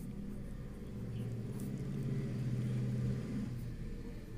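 Steady low hum of a running motor, swelling a little about halfway through.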